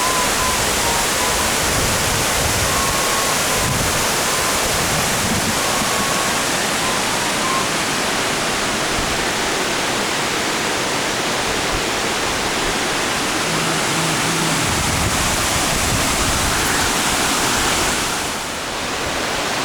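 Waterfall pouring, a steady loud rush of water that dips briefly near the end.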